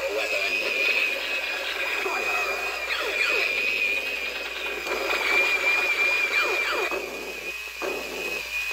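Battery-powered toy robot playing electronic sound effects from its small speaker: a steady high warbling tone with repeated falling sweeps over it, broken by a few short gaps near the end.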